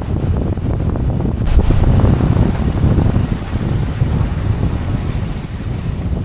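Wind buffeting the microphone: a loud, steady, low rumbling noise with no pitch to it.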